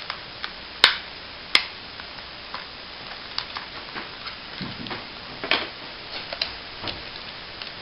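Plastic packaging clicking and crackling as a slot-car digital chip is worked out of it: two sharp clicks within the first two seconds, then scattered lighter clicks and a short crackle.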